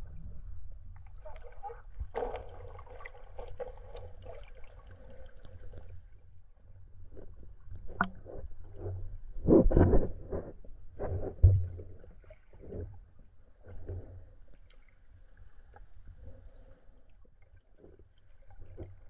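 Muffled sound of a camera held underwater in a shallow stream: a steady low rumble of moving water with sloshing surges and a few dull knocks, the loudest about ten and eleven and a half seconds in.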